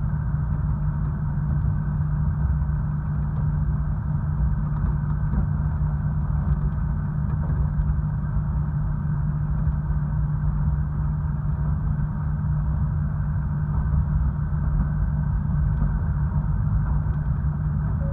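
KiHa 66 diesel railcar heard from inside the cabin: its diesel engine runs with a steady low drone over a constant rumble.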